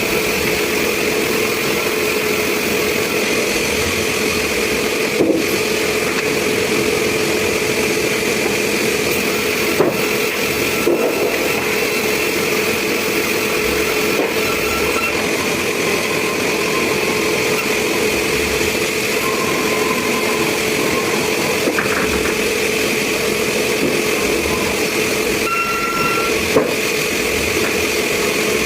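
Sawmill machinery running steadily, an unbroken mechanical drone with a constant pitch and a few brief knocks.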